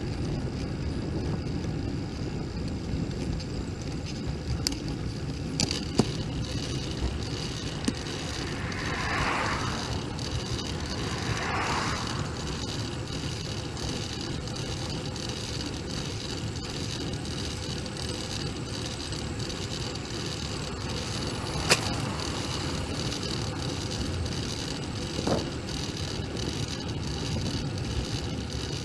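Steady wind and road rumble picked up by a camera mounted on a moving bicycle, with two brief swishes about nine and twelve seconds in and a few sharp clicks, the loudest a little past twenty seconds.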